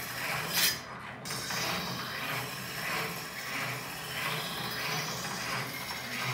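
Mini-machete being hand-sharpened at a vise-mounted sharpening tool: a steady rhythm of scraping, grinding strokes, about two a second. A single sharp clack about half a second in is the loudest sound.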